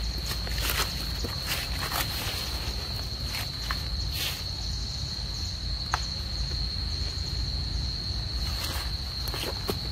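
Insects keep up a steady high-pitched drone, with scattered short rustles and clicks in dry leaves and one sharper click about six seconds in.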